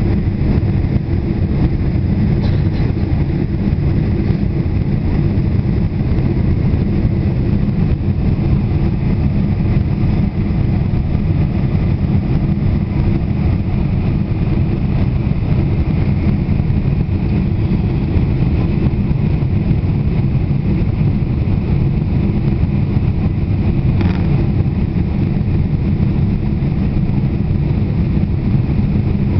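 Steady noise of a Boeing 747's engines and rushing air heard inside the passenger cabin on approach for landing, loud and even with most of its weight low down.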